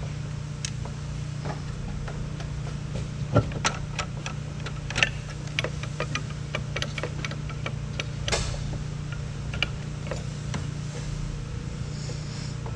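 Scattered metal clicks and knocks as the engine and its hoisting gear are shifted into the engine bay, with a few louder clanks about three and a half seconds, five seconds and eight seconds in. A steady low hum runs underneath.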